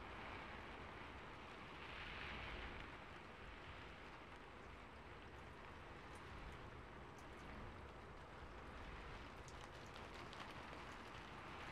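Soft, steady rain-like hiss, swelling slightly about two seconds in, with scattered faint ticks.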